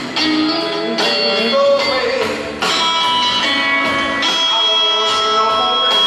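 Live rock band playing a slow song on electric guitar, upright bass and drum kit, with sustained notes changing every second or so.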